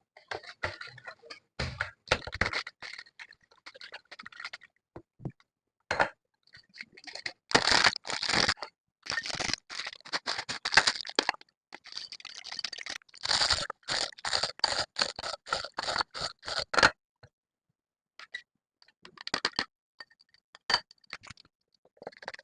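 Food-preparation sounds: bursts of rapid scraping and crunching strokes, several seconds at a time, thinning to a few scattered clicks near the end.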